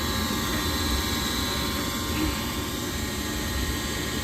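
Gas furnace running with a steady fan rush during a test run after a new flame sensor was fitted; the burner flame keeps dying out.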